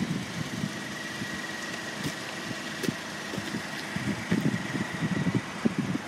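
A car engine idling steadily, with a faint high whine held throughout. From about four seconds in, gusty rumbling from wind on the microphone comes in.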